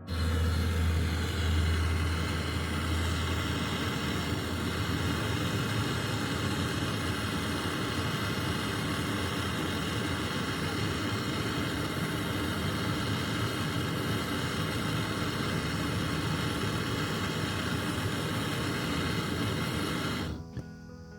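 Gas brazing torch flame roaring steadily while copper refrigerator coil joints are brazed. A low hum sits under it for the first few seconds, and it cuts off suddenly near the end.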